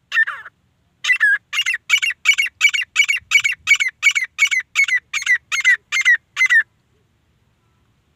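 Grey francolin calling: one note, then a fast run of about sixteen repeated, high-pitched notes at about three a second, stopping abruptly a little before the end.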